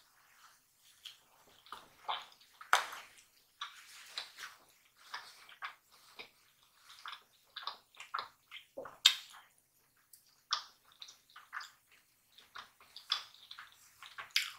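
Chewing a crumb-coated fried chicken drumstick: irregular crunches and wet mouth clicks, with a few sharper crunches now and then.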